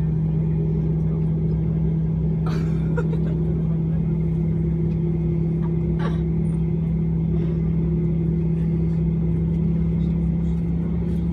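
Steady drone of an MD-90 airliner heard inside the cabin while parked, a constant low hum with a fainter higher tone above it. Two light knocks come about two and a half and six seconds in.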